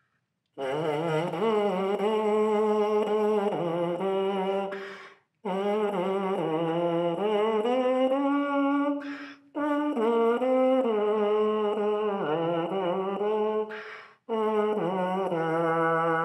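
Lips buzzing a simple stepwise tune on a trombone mouthpiece alone, without the horn. This is the mouthpiece-buzzing ear-training exercise. The tune comes in four phrases of short notes, with brief breath pauses about five, nine and a half and fourteen seconds in.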